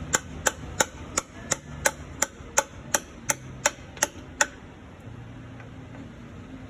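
Steady hammer blows on metal, about three a second, driving a new brake S-cam bushing into its bore with a bushing driver tool; the strikes stop a little over four seconds in.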